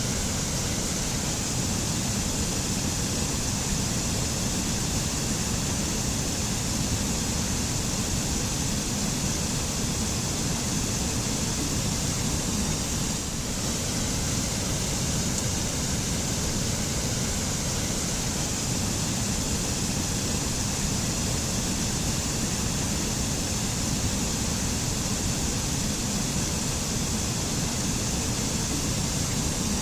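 Waterfall and stream water rushing in a steady, unbroken hiss with a deep low rumble.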